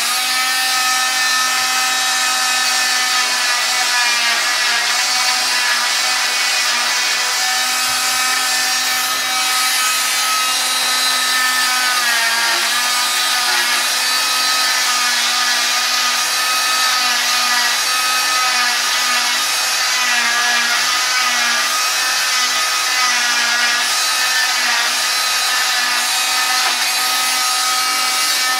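Oscillating cast saw running with a steady, high-pitched whine as it cuts through a fiberglass cast; its pitch sags briefly each time the blade bites under load, most clearly about 12 seconds in and again around 20 seconds.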